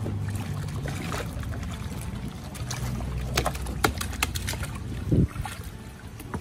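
Water and Orbeez water beads sloshing and splashing in a plastic paddling pool as a child moves and paddles her hands through it, with a few sharp clicks in the middle and a low thud near the end.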